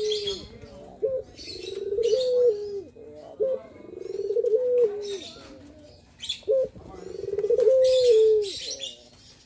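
Male puter (barbary dove) cooing its display call: three repeated phrases, each a short note followed by a long coo that rises, holds and falls. Other birds chirp at a much higher pitch between and over the coos.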